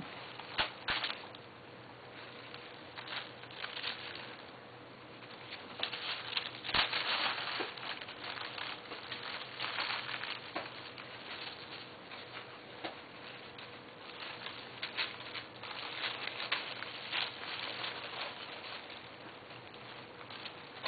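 Kittens playing in tissue and wrapping paper: irregular rustling and crinkling of paper, with a few sharp knocks, the loudest about seven seconds in.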